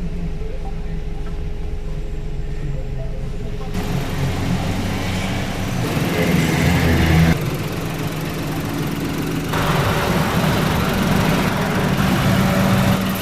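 Perodua Kenari's three-cylinder petrol engine running after its overhaul, getting louder about four seconds in and again around six to seven seconds.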